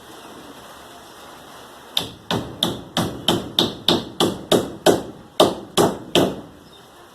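A hammer driving nails into a ceiling sheet: about a dozen sharp blows at about three a second, starting about two seconds in and stopping a second before the end.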